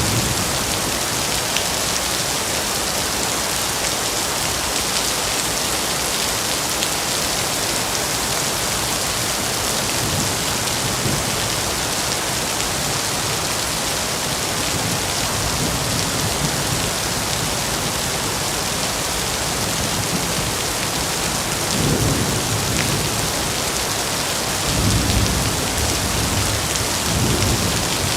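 Steady heavy rain falling on foliage, with low rolls of distant thunder rumbling up a few times, strongest near the end.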